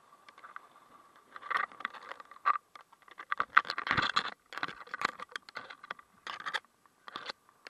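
Irregular scratchy rubbing and scraping against a body-worn action camera in a waterproof case, in uneven bursts that grow busier after the first second or so. A faint steady high tone runs underneath.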